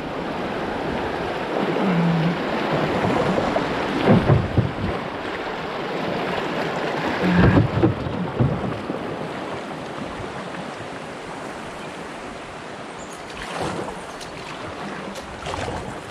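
Rushing river water through small rapids, a steady loud rush that slowly fades over the second half. A few low thumps and splashes stand out about four seconds in and again around seven to eight seconds in.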